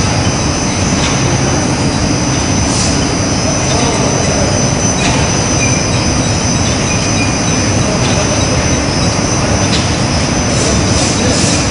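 Industrial textile-finishing machinery running: a loud, steady roar with a steady high whine, and a few faint clicks.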